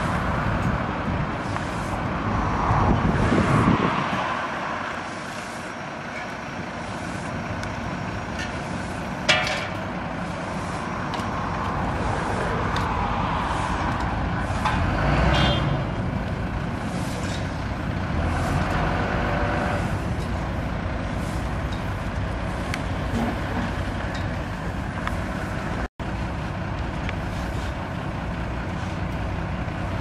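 Outdoor road-construction din: passing road traffic and truck engines rumbling, with shovels scraping through gravel and cement now and then. A brief sharp click about nine seconds in and a louder swell around the middle.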